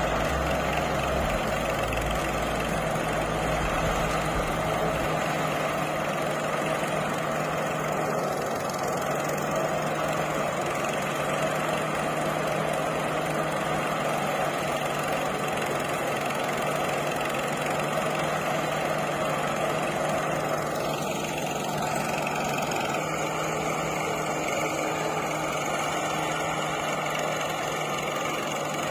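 Tractor engine running steadily under load, driving a threshing machine whose drum churns continuously as dried crop plants are fed into it.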